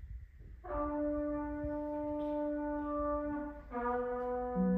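Chamber orchestra of winds, brass, harp and strings playing held chords in a contemporary piece: after a quiet start, a sustained chord enters about 0.7 s in and holds, then moves to a new chord about 3.7 s in, with a strong low note joining near the end.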